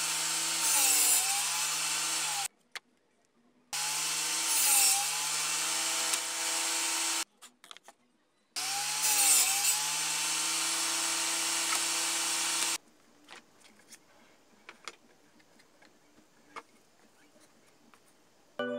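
Table saw cutting plywood in three short runs, with the motor's pitch dipping briefly in each as the blade takes the load. Near the end come a few faint knocks of plywood pieces being handled.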